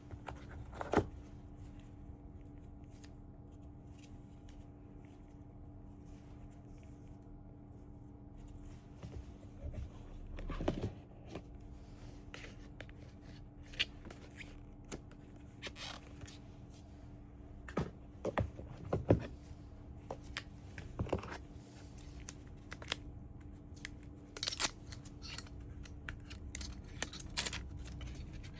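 Hands handling laptop box packaging: scattered clicks, taps and tearing or rustling of paper and cardboard, busier in the second half, over a faint steady hum.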